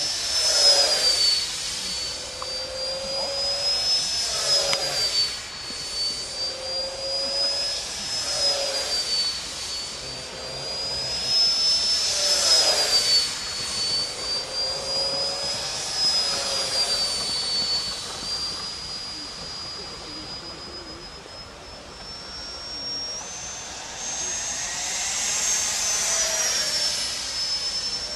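Electric ducted fan of a Funjet Ultra RC jet (a 70 mm, 11-blade impeller on a 4S battery) whining in flight. Its pitch rises and falls and it swells and fades with each pass, about every four seconds. The whine goes higher about three quarters of the way through.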